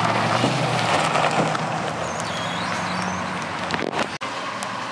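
Pickup truck pulling away, its engine running steadily and slowly fading. The sound cuts out abruptly just after four seconds in.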